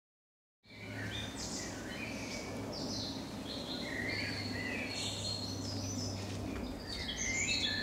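Woodland birdsong: several birds singing short chirping and warbling phrases, over a steady low hum. It starts about half a second in, after silence.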